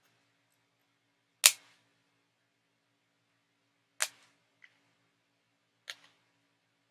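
Sharp, isolated plastic clicks from handling a Pullip doll, about five, the loudest about a second and a half in.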